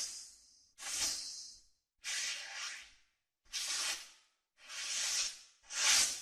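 A run of short, airy whoosh transition sound effects played one after another, six of them, each lasting under a second with a brief silence between.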